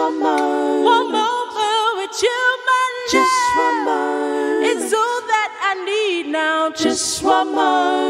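A woman singing a cappella: held notes with vibrato and no instrumental backing.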